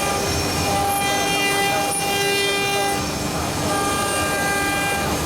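Four-head CNC wood carving router running: a steady machine noise with several whining tones that switch pitch every second or two as the carving moves change speed.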